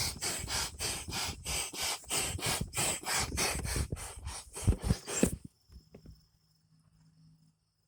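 Fast rhythmic scraping or rubbing strokes, about four a second, stopping suddenly about five seconds in. Crickets chirp faintly afterwards.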